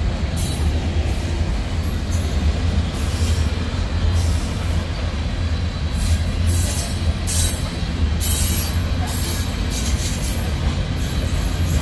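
Freight train rolling past: a steady, loud low rumble with short high-pitched hissing squeals from the wheels on the rails, repeating every second or so.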